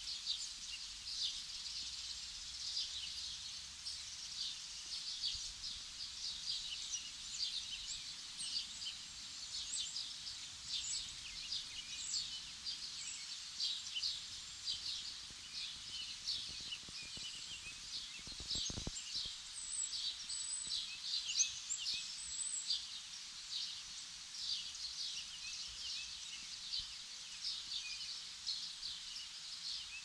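Small birds chirping, a dense chorus of many short high calls overlapping.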